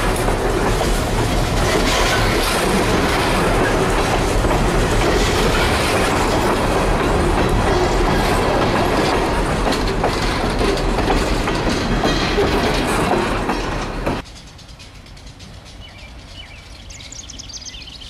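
Freight cars (covered hoppers and a tank car) rolling past close by, their steel wheels clicking over the rail joints. About 14 seconds in the sound cuts off abruptly to a much fainter background.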